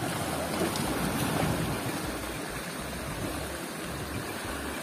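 Sea waves washing and splashing against the boulders of a rock breakwater, a steady rushing with a slight swell about a second in.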